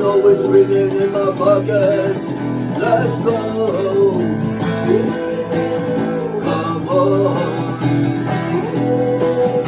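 Music: an acoustic guitar playing a song with a melodic line over it.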